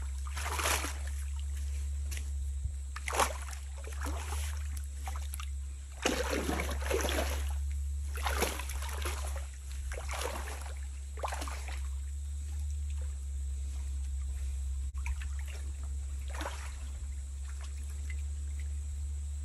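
Water splashing and sloshing in a shallow stream as a person wades and hauls a fishing net through it, in irregular bursts that thin out after about twelve seconds.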